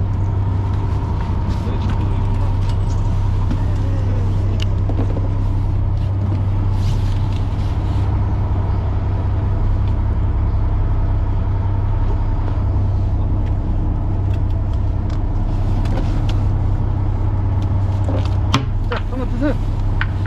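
Fishing boat's engine running with a steady low hum, and a single sharp knock about eighteen seconds in.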